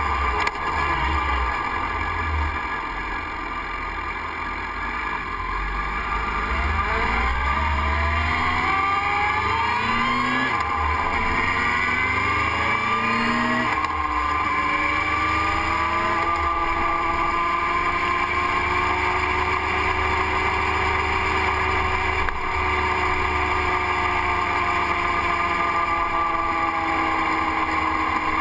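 Motorcycle engine heard from an on-bike camera, pulling up through the gears with the pitch rising and dropping back at shifts about ten and fourteen seconds in, then cruising with a steady, slowly falling note. Wind rumbles on the microphone throughout.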